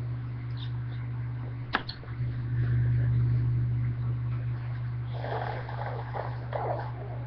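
A congested nose from a cold sniffling and snorting in short, irregular noisy breaths about five seconds in. Under it runs a steady low hum, with a single sharp click near two seconds.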